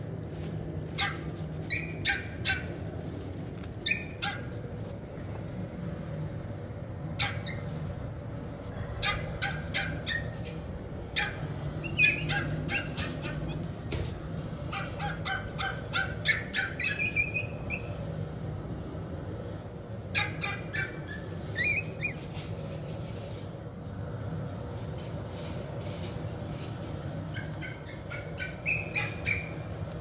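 Short, sharp animal calls coming in several scattered clusters over a steady low hum.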